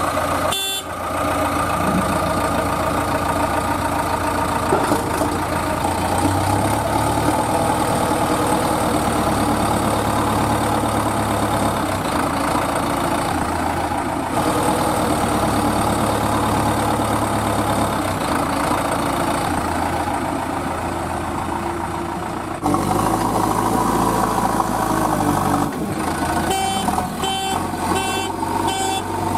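A heavy vehicle engine running, its pitch and level shifting in steps every few seconds. Near the end there is a quick run of short repeated tones.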